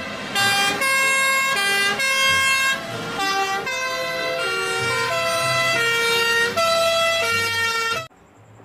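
Fire engines' sirens sounding, a horn-like tone stepping between a few steady notes every half second or so, the notes of more than one siren overlapping. It cuts off suddenly about eight seconds in.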